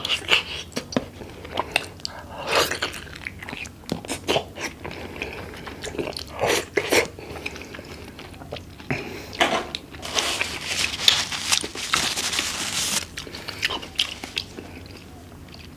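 Close-up mouth sounds of eating a grilled jumbo oyster in sweet chili garlic sauce: wet chewing, lip smacks and clicks. About ten seconds in comes a few seconds of airy hiss through pursed lips.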